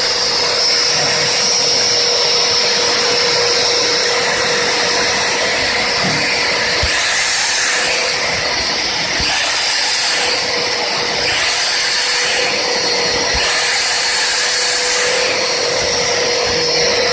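Industrial vacuum cleaner driven by two vacuum-cleaner motors running at full suction: a steady airy hiss with a constant whine. From about seven seconds in the hiss brightens and dulls every second or so as the airflow changes.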